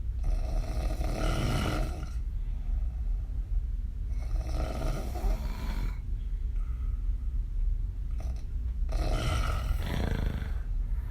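A woman snoring heavily with her mouth open while lying on her back: three rough, rattling snores about four seconds apart, each lasting about two seconds, over a steady low hum.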